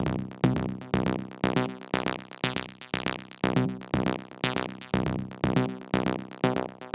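Electronic background music with a steady beat, about two beats a second.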